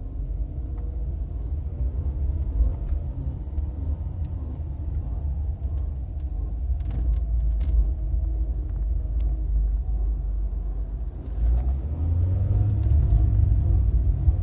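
Volkswagen Polo's 1.4 BUD four-cylinder petrol engine running with a low rumble, its pitch slowly wandering. A few sharp clicks come about seven seconds in, and it gets louder from about twelve seconds. This is the strange noise the owner wants identified.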